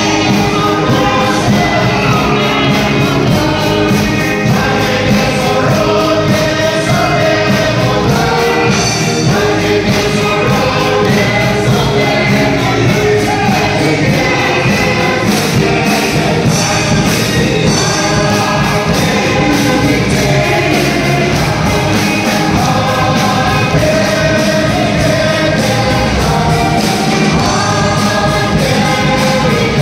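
Choir singing a gospel song over instrumental backing with a steady beat.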